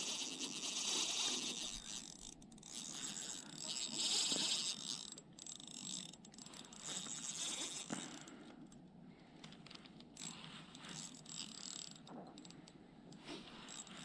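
Fishing reel being cranked in bursts, a whirring of its gears as line is wound in, with scattered small clicks and rod handling noise near the end.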